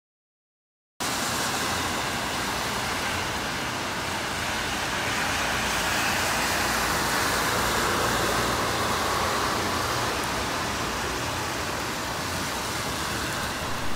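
Steady hiss of rain and wet-road traffic, starting about a second in, swelling a little around the middle as a car's tyres swish by on the wet pavement.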